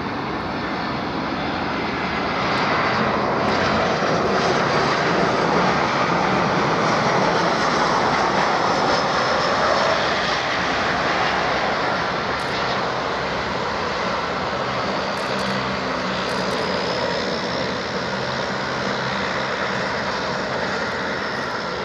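Airbus twin-jet airliner on final approach and landing: a continuous jet-engine roar that builds to its loudest as the aircraft passes close. It eases slightly about ten seconds in as the jet touches down, then holds steady as it rolls out along the runway.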